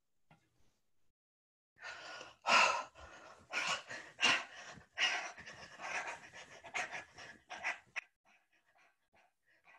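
A woman making a rapid, irregular series of breathy, panting puffs without words. They start about two seconds in and stop about eight seconds in, followed by a few faint clicks.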